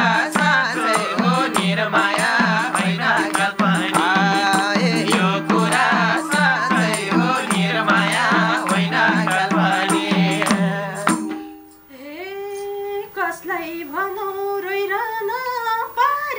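Nepali lok dohori band playing: a harmonium drone with madal drum and jingle tambourine keeping a fast, steady beat. The band stops abruptly about eleven seconds in, and a woman starts singing a slow, unaccompanied phrase.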